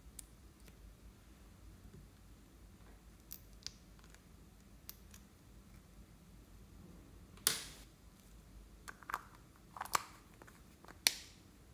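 A few sharp plastic clicks and taps from handling a small plastic jar and a plastic spatula, scattered and irregular, with the loudest about two thirds of the way in and another just before the end.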